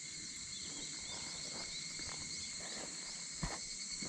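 A steady chorus of insects singing in high, unbroken tones, with one faint knock about three and a half seconds in.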